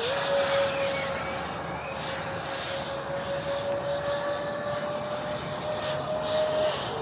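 Freewing MiG-29 RC jet's electric ducted fans whining steadily in flight. The pitch jumps up at the start, creeps slowly higher, then falls away near the end.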